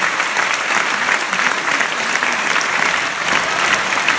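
Theatre audience applauding steadily, a dense mass of clapping hands.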